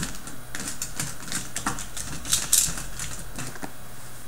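Hands rummaging among small hard objects: a quick, irregular run of clicks and light clatter, with a brief scraping rustle about two and a half seconds in.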